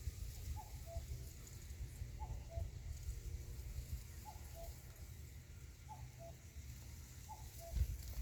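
An animal's short two-note call, repeated evenly about every second and a half, over a low rumble, with a dull thump near the end.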